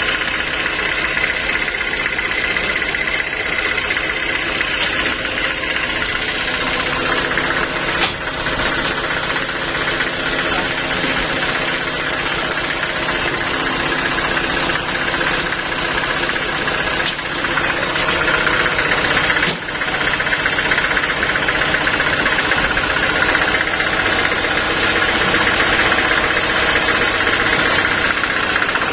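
Band sawmill's engine running steadily without load, with a few brief knocks.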